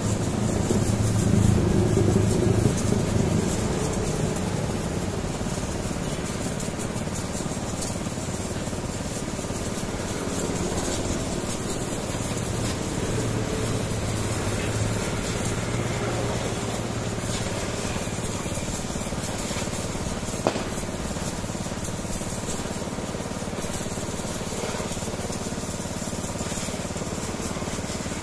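Pressure washer running: a steady low motor hum under the hiss of the high-pressure water jet hitting a motorcycle, with one short sharp click about twenty seconds in.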